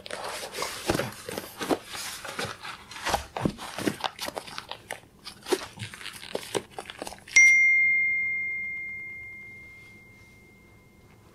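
Shoelaces being pulled and tied on canvas sneakers: a quick run of rustles, small snaps and cloth scrapes. About seven seconds in, a single bright bell-like ding rings out and fades slowly over several seconds.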